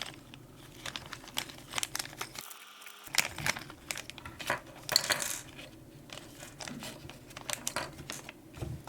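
Crinkling of plastic packaging and sharp clicks of small plastic parts as a new two-pin alternator wiring connector kit, with its spare terminals and seals, is handled.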